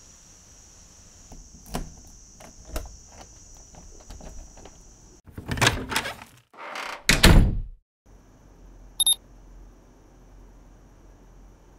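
Crickets chirping steadily, with a few sharp clicks at a hotel room door. About five and a half seconds in, the door is worked with loud thunks, and a short electronic beep sounds near the end.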